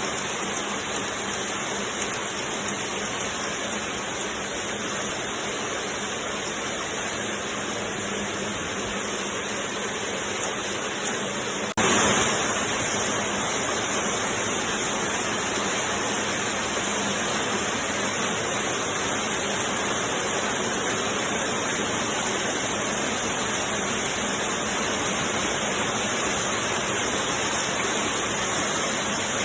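10-gauge glove knitting machine running, a dense steady mechanical rush and clatter. It turns suddenly louder and brighter about twelve seconds in.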